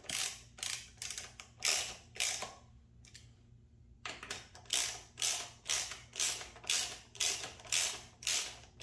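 Hand ratcheting driver clicking in short strokes, about two a second, as Torx-head bolts are snugged down, with a pause of about a second and a half near the middle.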